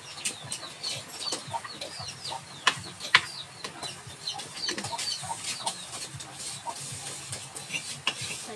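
Birds chirping: many short, high, falling calls repeated throughout, with a few sharp knocks, one louder about three seconds in.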